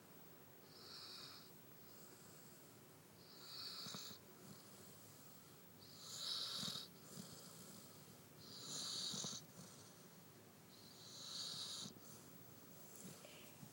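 A sleeping pet snoring: five slow, hissy snores, one about every two and a half seconds, the middle two the loudest.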